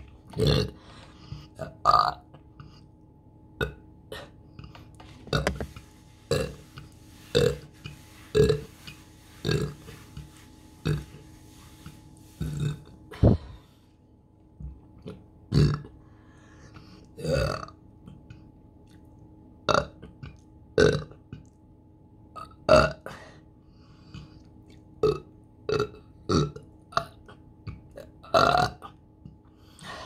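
A woman burping over and over: a long run of short, separate burps, roughly one a second.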